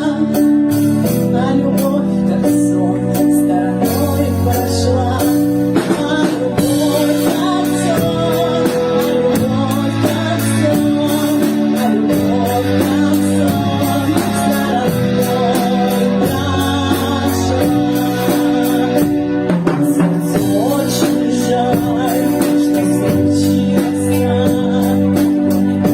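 Music: a cover of a 1970s Soviet pop song, singing over guitar and keyboard backing with a steady beat.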